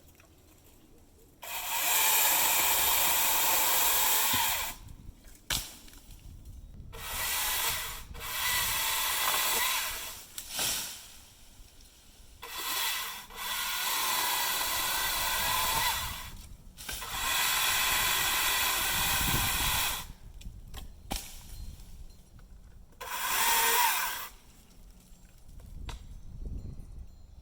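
Husqvarna T535i XP battery top-handle chainsaw cutting wood in repeated bursts of one to four seconds, going quiet between cuts.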